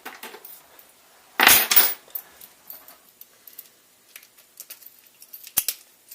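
Metal clatter of a small gun lock and lock-picking tools being handled and set down: one loud clatter about a second and a half in, light clicks and rattles after it, and a sharp click near the end.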